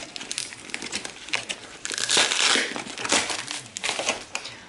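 Cardboard shipping box being opened by hand: the tear strip is pulled along the seam with crackling and tearing of cardboard and tape, loudest about two seconds in, then the flaps are pulled open with rustling.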